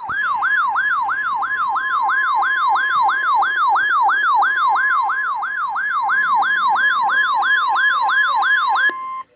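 NOAA Weather Radio warning alarm tone sounding for a required weekly test: a loud, steady 1050 Hz tone with a warbling siren sweeping up and down about three times a second over it, from the receiver's alert alarm. The warble stops near the end, and the steady tone cuts off a moment later.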